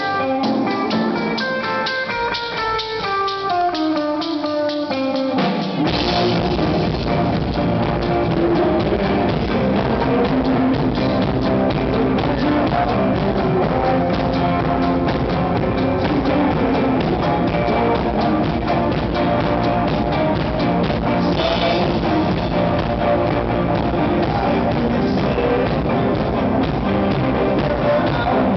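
Live rock band. A guitar plays a descending line of single notes alone, then drums and bass come in with the full band about six seconds in.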